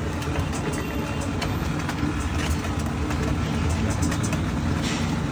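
Hand masher pressing and scraping through vegetable bhaji on a large flat griddle, with many quick taps and clicks as it strikes the pan, over a steady low rumble. The vegetables are being mashed fine while still partly raw, which makes the mashing hard work.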